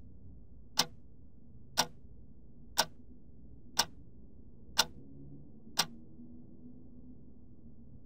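Wall clock ticking once a second: six sharp ticks, then the ticking stops about six seconds in.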